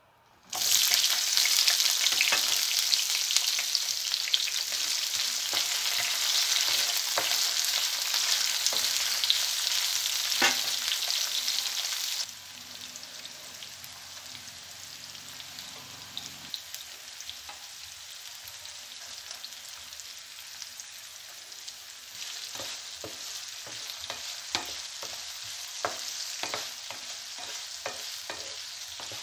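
Sliced onions and green chillies hitting hot oil in a non-stick pan, setting off a loud sizzle about half a second in. About twelve seconds in it drops suddenly to a softer, steady frying sizzle, and in the last several seconds a wooden spatula knocks and scrapes against the pan as the onions are stirred.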